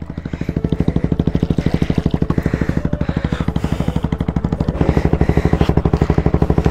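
Motorcycle engine idling with a steady, rapid beat, a little louder from about five seconds in.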